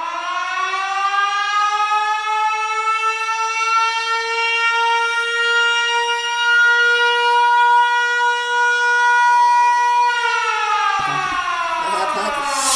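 A siren-like wailing tone rises in pitch, holds steady for about ten seconds, then winds down. A music beat starts near the end.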